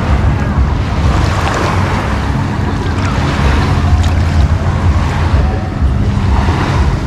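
Wind rumbling on the microphone over small waves washing onto the beach, with faint voices in the background.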